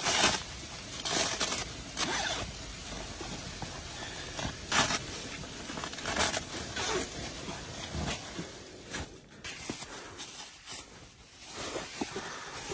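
Irregular rustling and scraping noises, a few every couple of seconds, from someone moving about and handling gear.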